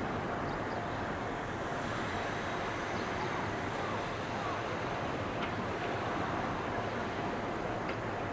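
Steady rumble of an Ohmi Railway electric train approaching, mixed with wind noise on the microphone.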